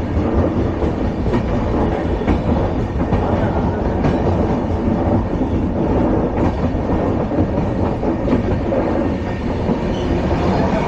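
LHB passenger coach running on the track: a steady, loud rolling rumble of wheels on rail, with a few faint clicks over the track.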